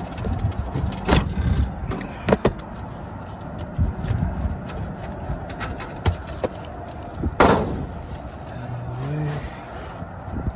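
Metal clinks, knocks and scrapes of hand tools working on the gas line and valve fittings of a rooftop furnace, with one sharp clank about seven seconds in.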